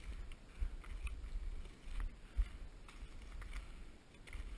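Footsteps on snowshoes in snow: irregular soft thuds with faint crunches.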